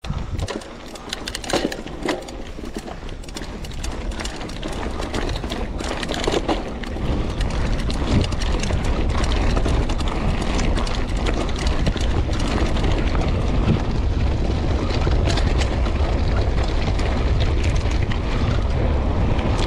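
Mountain bike rolling over a rough dirt and grass track: tyre noise with sharp clicks and rattles from the bike over bumps, and wind buffeting the action camera's microphone, which grows louder from about seven seconds in as speed picks up.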